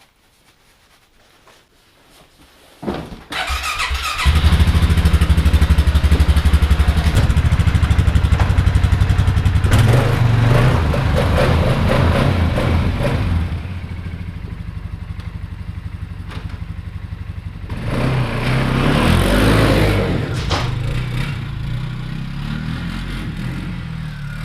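2014 Polaris Sportsman 570's single-cylinder engine cranked and started about three seconds in, catching at once and running with a quick, even pulse. It is revved up twice and settles back to idle between.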